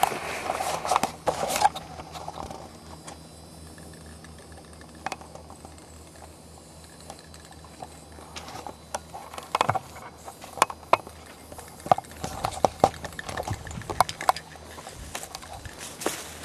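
Footsteps crunching on trackside gravel and dry grass, irregular, busy at the start and again from about halfway on. In the quieter stretch between, a low steady hum is heard.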